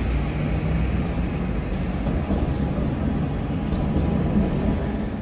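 A double-unit Alstom Citadis tram passing close by, a steady rumble of its running gear on the rails with street traffic noise.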